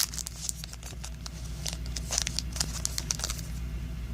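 Foil wrapper of a baseball card pack crinkling and tearing as it is opened by hand, a run of irregular crackles.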